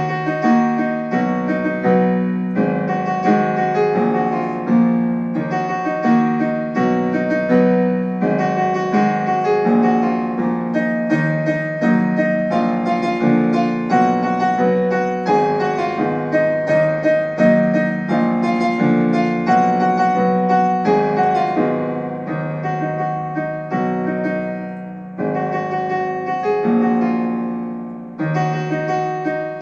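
Piano playing a melody over chords, note after note with no pauses of any length.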